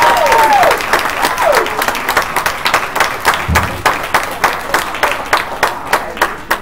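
Audience applauding after the set, with a held whistle that drops in pitch twice in the first two seconds; the clapping then thins out and fades as it dies down.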